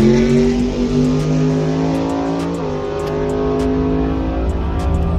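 A drag-racing Mustang's engine launching hard off the start line, jumping at once to high revs and pulling steadily, with a shift in pitch about two and a half seconds in. It is heard from inside the cabin of the slow-starting Tesla Model S Plaid in the next lane.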